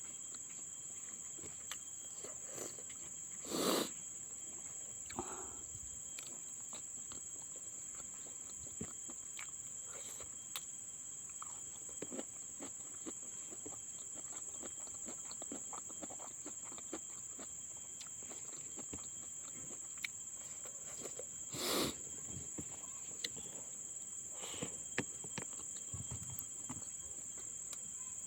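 Mouth sounds of someone eating a fish head: small clicks and smacks while chewing, with two louder short bursts, about four seconds in and near the twenty-two-second mark, over a steady high insect drone.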